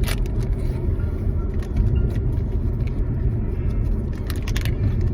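Steady low road rumble of a car cabin while driving, with a few short crackles and clicks at the start, about two seconds in, and near the end.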